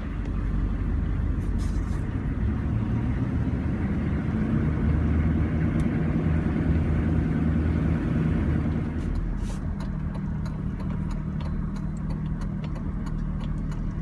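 Car driving on the road: steady engine hum and road noise. About two-thirds of the way through it eases a little and a run of quick, light ticks joins in.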